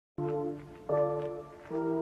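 Intro music of sustained brass chords, a new chord starting about every three-quarters of a second, each beginning loud and fading.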